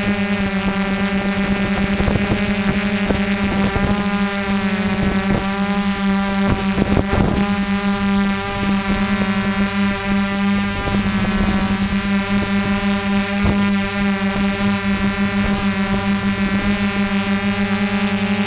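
Small multirotor drone's electric motors and propellers buzzing steadily, with small shifts in pitch as it flies.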